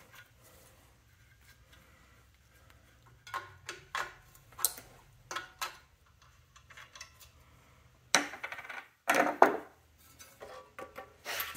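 Metal clinks and clicks from an adjustable wrench and small steel bolts as the intake and exhaust manifold bolts of a Toyota 4A-C engine are loosened and removed, with a louder metal clatter about eight to nine seconds in.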